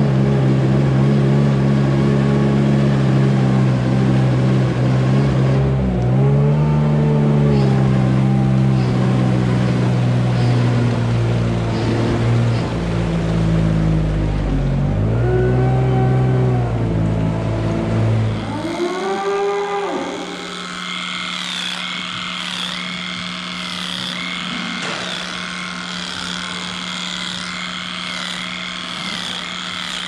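Small engine of a self-propelled sawdust bedding spreader running steadily as it blows bedding into the stalls, its pitch dipping and recovering twice. About 19 s in the engine stops abruptly and cattle calls are heard over a steady hum.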